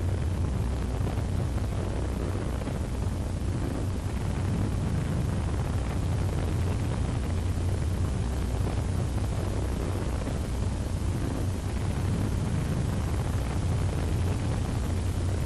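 A steady rumbling roar, heaviest in the low end with a thin hiss above it, that holds evenly without breaks.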